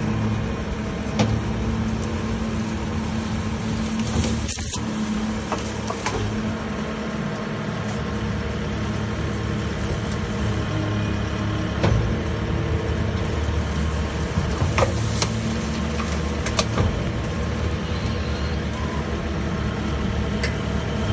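ShinMaywa Press Pack GP-X packer garbage truck running its rear loading mechanism, a steady mechanical hum as it drags in and compresses a heap of privet branches. Scattered sharp cracks and snaps come through several times as the branches are crushed.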